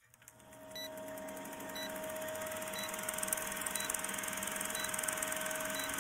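Old film countdown-leader sound effect: the steady whirring rattle and crackle of a film projector, fading in over the first second, with six short high beeps, one each second.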